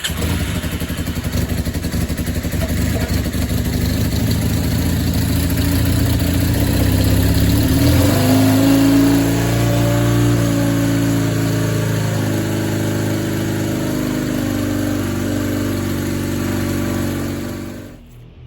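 Honda CB450S parallel-twin engine running after starting on the new starter motor. It is revved up once about halfway through, then settles back to a steady run and shuts off just before the end.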